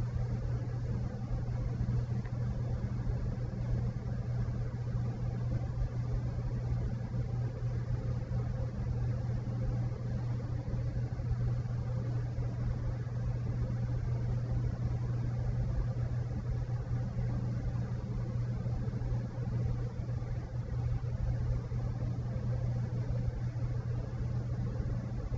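Steady low hum with a faint hiss, unchanging throughout: room background noise.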